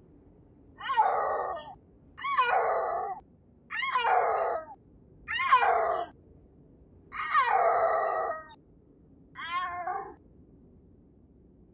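Snow leopard calling: six loud yowls, each about a second long, coming roughly every one and a half seconds, the fifth the longest and the last one shorter.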